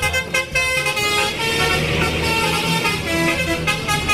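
Tour bus's multi-tone musical air horn (a telolet horn) playing a run of changing notes, over the bus's engine running.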